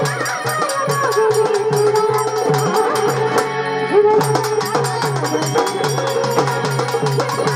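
Indian folk music in a traditional Marathi style: pitched hand drums beat a quick steady rhythm under a melody, with small metal cymbals ticking. The beat breaks off briefly about halfway through while a note is held, then picks up again.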